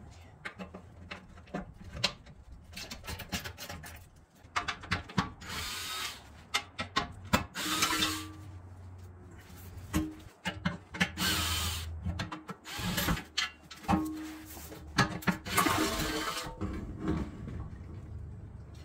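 A cordless power tool runs in about five short bursts, a second or so each, spinning out the bolts that hold a Jeep Wrangler JL's front skid plate. Small clicks and knocks of metal come between the bursts.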